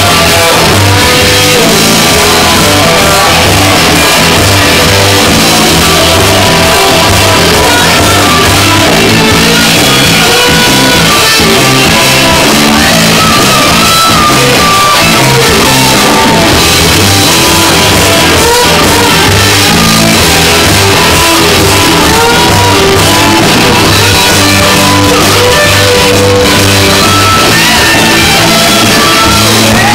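Live rock band playing at full volume: electric guitars and drum kit with vocals, so loud that the recording is overloaded.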